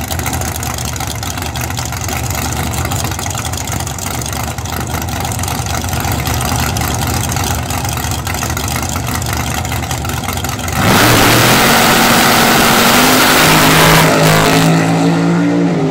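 Top Sportsman drag car's V8 engine running at the starting line, then a sudden full-throttle launch about eleven seconds in: very loud for about four seconds, then fading as the car runs away down the strip.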